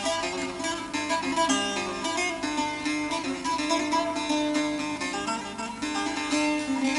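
Instrumental break of a Turkish folk song: a bağlama (saz) plays a fast run of plucked notes between sung verses.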